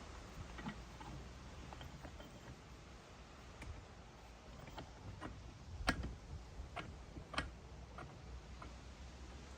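Scattered light clicks and knocks of tools and parts being handled while fitting a ball joint into a van spindle, with two sharper knocks about six and seven and a half seconds in.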